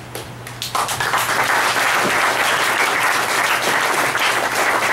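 Audience applauding, the clapping starting under a second in and going on steadily.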